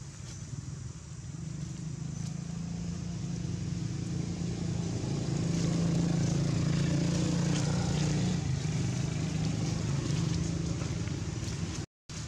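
Low, steady hum of a motor vehicle's engine, swelling over the first few seconds and easing off slightly later; the sound cuts out for a moment near the end.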